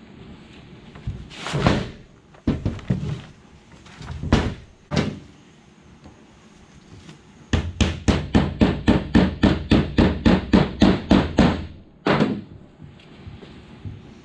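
Hammer striking the end of a screwdriver wedged at the cast-aluminum end cap of a 6.9 diesel oil cooler, working it loose. A few single blows, then a quick steady run of about four taps a second for some four seconds, and one more blow.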